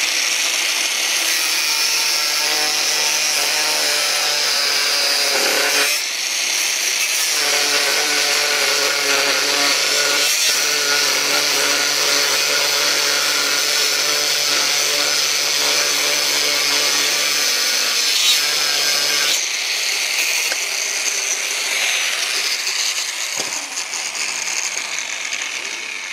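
Angle grinder cutting through 6 mm flat steel bar under heavy load: a loud, steady grinding whine with a few short breaks in the cut. About twenty seconds in it is switched off and winds down, fading out near the end.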